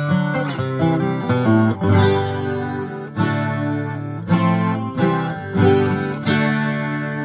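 1987 Takamine twelve-string acoustic guitar being played: a quick run of picked notes, then chords struck about once a second and left to ring.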